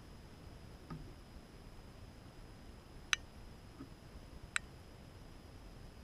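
Two sharp, very brief clicks about a second and a half apart, over faint steady hiss.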